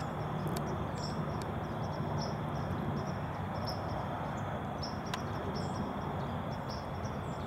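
Field crickets chirping, about two short chirps a second, over a steady low background rumble, with a faint click or two.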